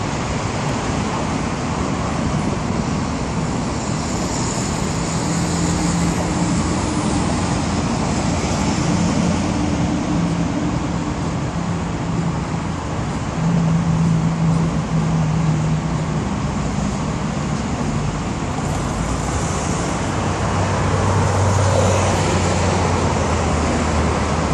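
Road traffic noise with car engines idling and pulling away, among them a Porsche 981 Boxster's flat-six. The traffic gets louder about halfway through, and a deeper engine note swells near the end.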